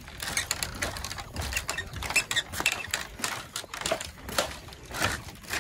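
Irregular light clicks and knocks, typical of footsteps and shifting weight on a bamboo walkway's planks.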